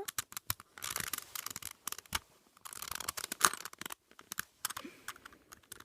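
Plastic Rubik's Cube pieces clicking and scraping as they are handled and pushed back into the cube: an irregular run of small clicks and scratches, with one sharper click about three and a half seconds in.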